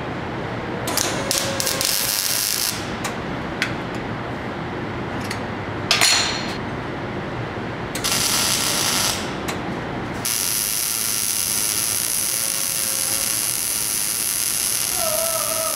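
Metal-fabrication tool noise: rapid mechanical clicking with several short loud bursts, then a steady hiss from about ten seconds in.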